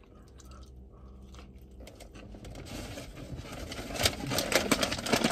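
Crinkling and rustling of a paper food wrapper or bag being handled close by. It starts quietly and builds to a quick run of crackles near the end.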